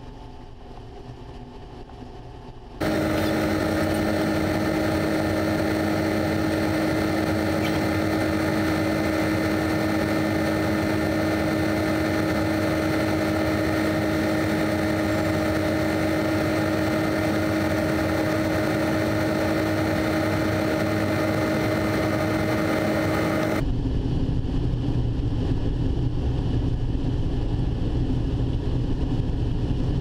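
Combine harvester running steadily while harvesting corn. About three seconds in, the sound jumps abruptly to a loud, even machine drone with a steady humming whine; this is heard while shelled corn pours from the unloading auger into a grain cart. Near the end it changes abruptly to a lower, deeper hum as heard inside the cab.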